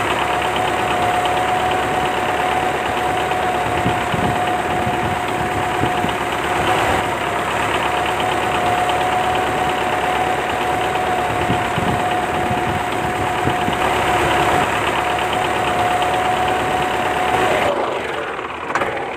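Small electric motor of a homemade mini cutting machine running steadily with a high, even whine and a fast rattle, slowing and dying away near the end.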